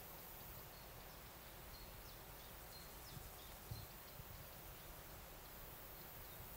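Near silence: faint open-field ambience with a few faint, short high chirps and two soft low bumps about halfway through.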